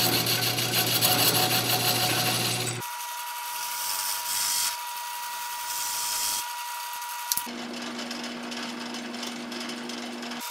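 Wood lathe running while a parting tool cuts into the base of a spinning Baltic birch plywood bowl: a steady scraping hiss of the cut over the motor's steady tone. The sound changes abruptly about three seconds in and again about seven seconds in, the first part loudest.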